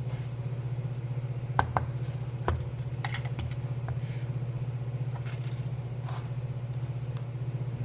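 Steady low hum with a few light knocks and scrapes, about a second and a half in and again around three and five seconds: pieces of wood and marking tools being handled on a workbench.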